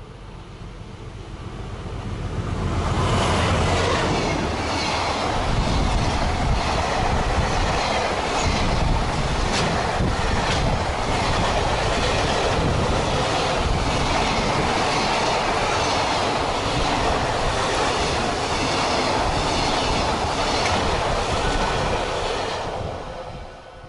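Freight train of container wagons passing at speed. It builds as it approaches over the first few seconds, then runs on as a steady rush with a regular clickety-clack of wheels over rail joints, and drops away near the end.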